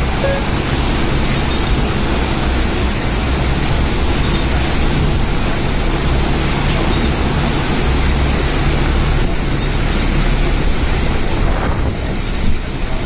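Steady loud rushing of stormy wind on the phone's microphone over floodwater, with a low steady hum underneath.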